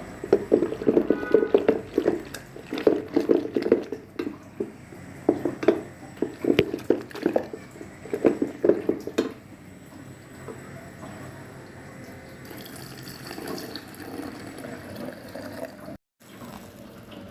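Water running and splashing in uneven bursts for about the first nine seconds, then a fainter, steadier sound.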